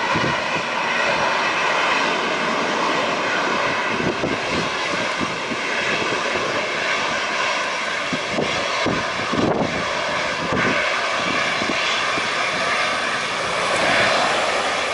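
Airplane engine noise, loud and steady throughout, with faint steady whining tones over it and wind buffeting the microphone now and then.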